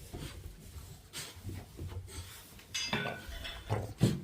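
Light clinks and clicks of small hard objects, with a short ringing jingle about three seconds in and a sharper click near the end.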